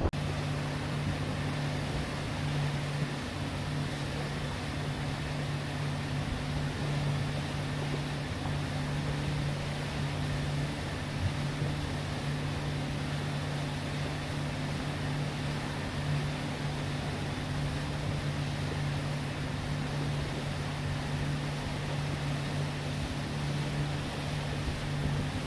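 An engine running at a constant speed, a steady low hum with an even rushing noise over it.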